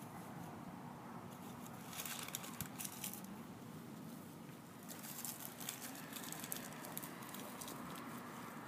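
Gloved hands digging into and pressing damp soil, giving short crunching and scraping sounds in two spells, about two seconds in and again from about five to seven seconds.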